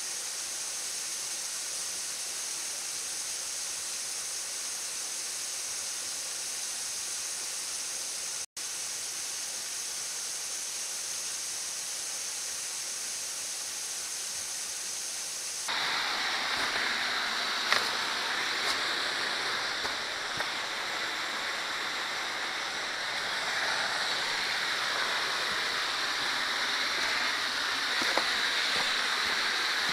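Small waterfall and creek cascade, water rushing steadily over rock. About halfway through, the rushing turns abruptly louder and fuller, with a few faint clicks.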